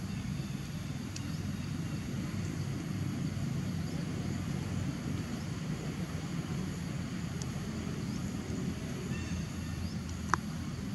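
Steady low outdoor rumble with a few faint, short high chirps, and one sharp click about ten seconds in.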